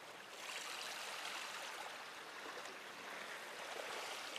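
Faint, steady wash of seawater lapping, a soft even hiss that swells slightly about half a second in.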